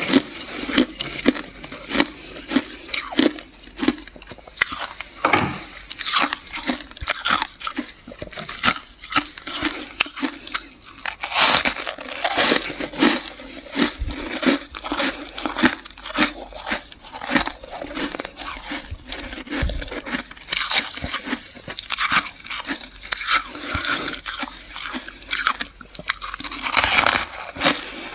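Dry, flaky freezer frost being bitten and chewed: a dense, irregular series of crisp crunches.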